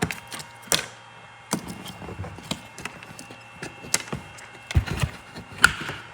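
Plastic trim cover and its push clips being worked loose by hand: a string of irregular sharp clicks and knocks, with the loudest at the start, about three-quarters of a second in, and twice near the end.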